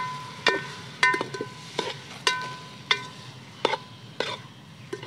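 Steel spoon striking and scraping an aluminium cooking pot while stirring shell-on snails. It gives about nine sharp ringing clinks, roughly one every half second, with the shells rattling in between.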